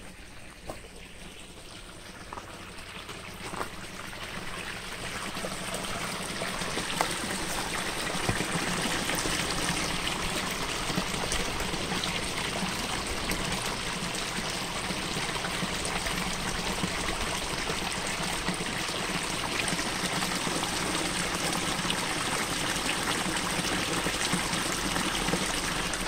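Mountain valley stream flowing, a steady rush of water that grows louder over the first several seconds and then holds steady.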